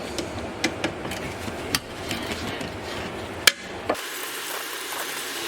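Scattered metallic clicks and knocks of hand tools working the rear brake caliper bolts, with the sharpest knock about three and a half seconds in.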